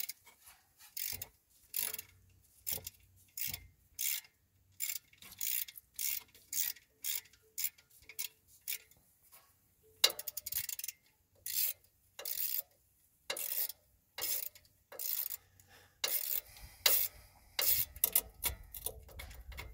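Hand ratchet clicking in a steady run of short back-and-forth strokes as it loosens the 8 mm bolt holding a transmission speed sensor bracket.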